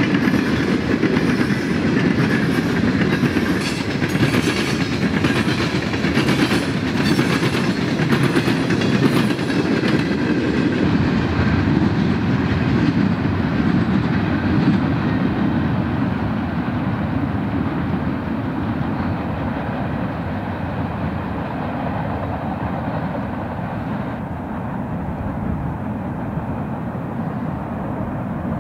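Loaded freight train of coke cars rolling past, its wheels clicking over the rail joints; the sound fades gradually through the second half.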